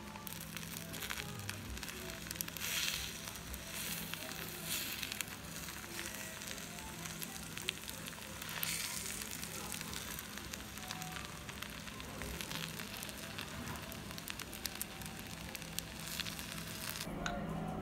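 Bibimbap sizzling in a hot stone bowl (dolsot): a steady hiss full of small crackles as the rice and toppings fry against the heated stone.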